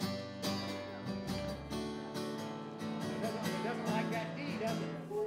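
Acoustic guitar being strummed steadily, chords ringing out between strokes.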